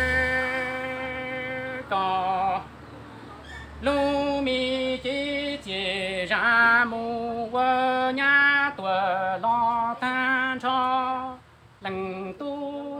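Hmong kwv txhiaj sung poetry: a single voice singing short phrases, the held notes wavering with a strong vibrato and breaking off between lines. A long steady note fades out over the first two seconds, and there is a brief lull about three seconds in.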